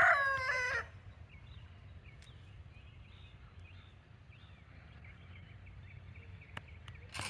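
Rooster crowing, the last of the crow falling in pitch and ending within the first second. Faint chirps of small birds follow.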